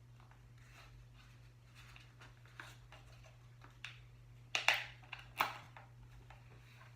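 Scattered light clicks and rustles of LEGO pen packaging and parts being handled, with two louder crinkling strokes about four and a half and five and a half seconds in, over a low steady hum.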